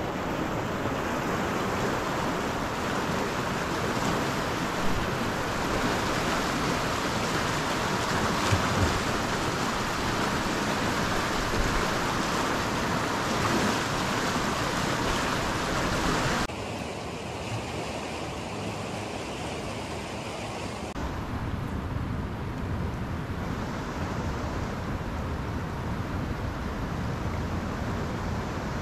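A river running a little high rushes steadily as a dense hiss, with wind buffeting the microphone. A little past halfway the rush cuts suddenly to a duller, quieter sound, and the low rumble comes back a few seconds later.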